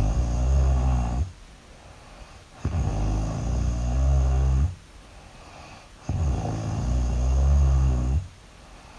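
A person snoring really loud: three long, low snores about three seconds apart, each lasting about two seconds, with quiet breaths between.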